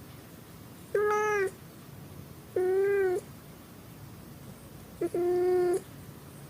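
Domestic cat meowing three times, each call about half a second long and slightly arched in pitch, a second or two apart.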